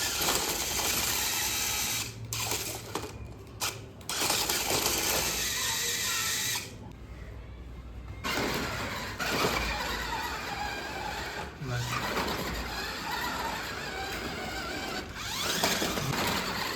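Electric motor of a radio-controlled toy car whining as it speeds up and slows, with tyre and chassis noise. The sound breaks off abruptly several times, and the whine rises in pitch twice.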